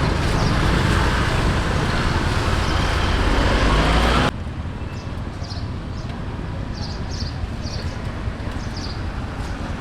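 Street traffic noise, with a motor vehicle loud and rising in pitch for the first four seconds, then cutting off abruptly to quieter street background with faint short high chirps.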